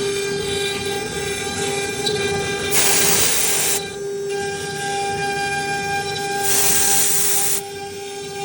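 CNC router spindle running with a steady high whine, joined twice by about a second of loud rushing hiss, a few seconds apart.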